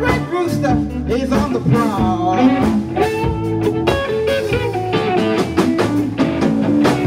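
Live blues band playing: electric bass and guitar over a steady beat of drum and cymbal hits.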